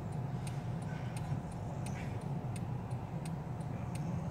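Car cabin noise while driving: a steady low road-and-engine rumble, with a regular light ticking about three times a second over it.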